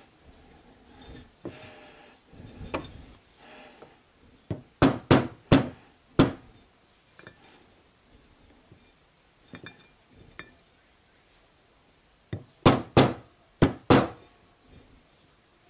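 Hammer tapping a new oil seal into a Toyota 3S/4S/5S-FE oil pump cover, driving it through the old seal used as a driver. The seal is being set about 2 mm deeper so its lip clears a worn groove on the shaft. The taps come in groups: four quick sharp strikes just before halfway, a few faint taps after them, and four more sharp strikes near the end.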